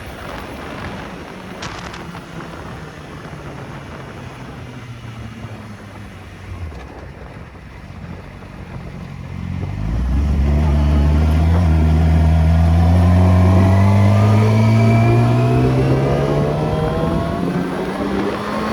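A motor vehicle's engine running steadily. About ten seconds in it becomes much louder and accelerates, its pitch climbing slowly and steadily.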